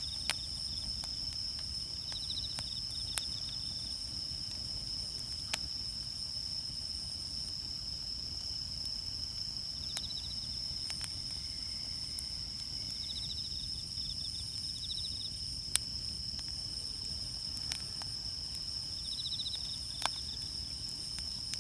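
Wood campfire crackling, with a sharp pop every few seconds over a low steady hiss of the burning logs. Behind it, insects keep up a steady high drone broken by short repeated trills.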